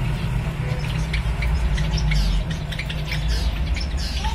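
Black-cheek zebra finches calling from a small wire cage: short, high, repeated chirps several times a second, with a few longer downward-sliding calls near the end, over a steady low rumble.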